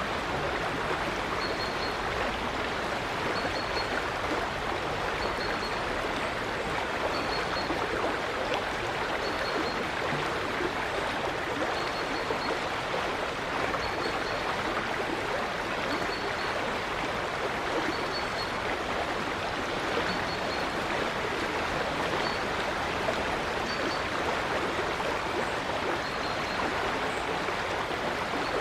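A river running steadily: an even, unbroken rush of flowing water. Over it, a bird repeats one short, high note about every one and a half to two seconds.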